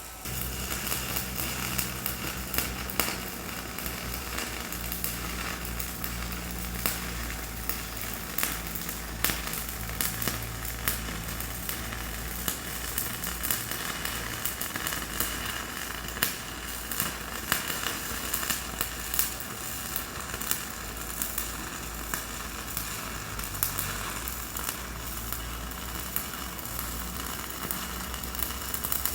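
Electric arc welding on steel: a steady crackling, sizzling arc with a low hum underneath, starting suddenly and running on without a break.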